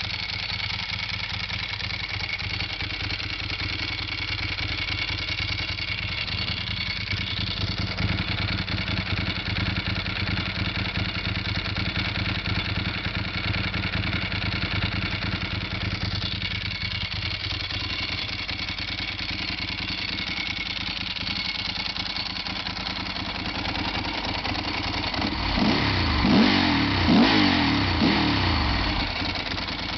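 Ducati 748 S's 90-degree V-twin engine idling through carbon 45 mm Termignoni slip-on exhausts, then revved in a few quick blips near the end.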